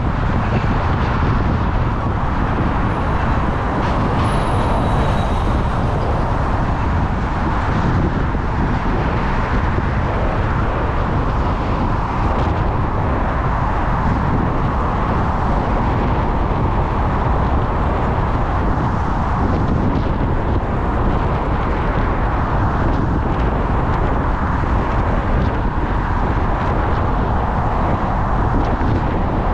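Steady rush of wind over a bike-mounted action camera's microphone while cycling, mixed with continuous road traffic noise. A faint high whistle comes in briefly about four seconds in.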